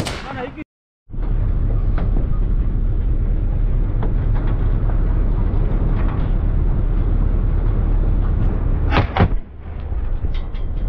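Vehicle driving over rough sandy ground, its engine and tyres making a steady low rumble, heard from a camera mounted on the vehicle. A sharp bang, a shotgun shot, comes right at the start, and two more sharp bangs come close together about nine seconds in.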